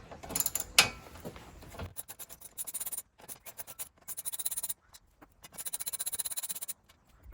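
Ratchet wrench clicking in quick runs, three times, as the exhaust mounting bolts are undone, after a couple of knocks in the first second or two.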